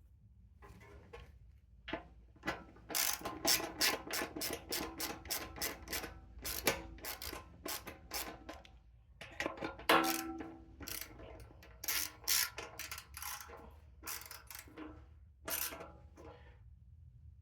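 Hand ratchet wrench clicking in quick runs of strokes as bolts are tightened, with short pauses between runs.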